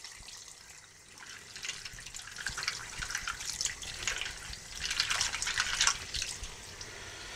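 Water splashing and dripping as plastic keyboard keycaps are washed by hand in soapy water. The sound is irregular and picks up after about a second and a half.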